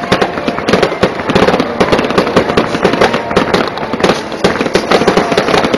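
Aerial fireworks going off in rapid succession: a dense, loud run of sharp bangs and crackles, many a second, without a break.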